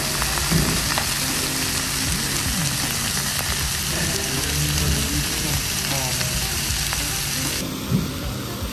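Steak sizzling on a hot iron plate: a loud, steady hiss that drops away sharply near the end.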